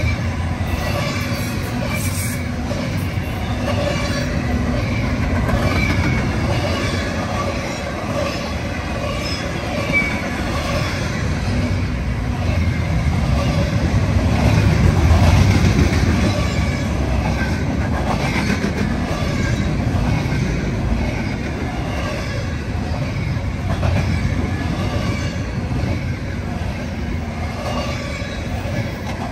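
Double-stack intermodal freight train's well cars rolling past at close range: a steady noise of steel wheels on rail, swelling slightly about halfway through, with faint wavering high wheel squeal over it.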